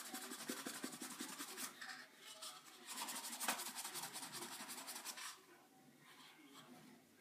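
Cloth rubbing on a plastic car turn-signal lens, polishing the faded plastic with toothpaste in circular strokes. The rubbing dips briefly about two seconds in and stops about five seconds in.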